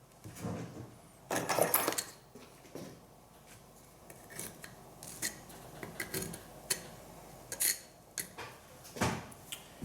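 Tools and small hardware being handled and set down on a hard surface: a string of irregular clicks, clinks and knocks, with a louder scraping rustle about a second and a half in and another knock-and-scrape near the end.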